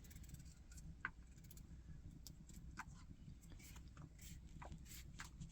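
Near silence: a faint steady low background rumble with a few faint, scattered short clicks.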